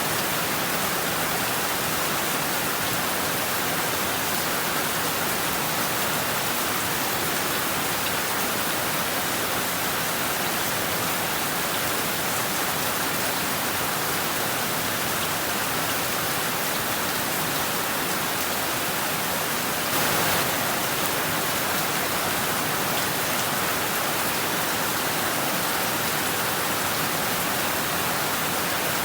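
Heavy rain falling steadily, an even continuous hiss, with one brief louder moment about two-thirds of the way through.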